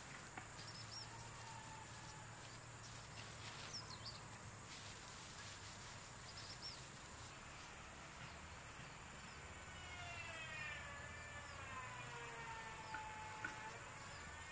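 Faint rural outdoor background: a steady high insect drone and a few short bird chirps. From about two-thirds of the way through come long calls that glide up and down in pitch, roosters crowing in the distance.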